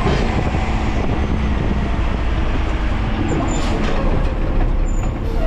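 Garbage truck driving: a steady, loud rumble of engine and road noise, with a few faint clicks and rattles a little past the middle.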